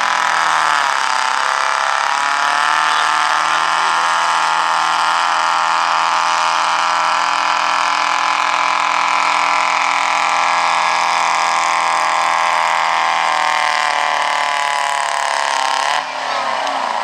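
Semi truck's diesel engine running hard under heavy load as it drags a weight-transfer pulling sled, holding a steady high-revving note. The pitch sags about a second in and then holds, until near the end the level drops suddenly and the revs fall away as the throttle comes off.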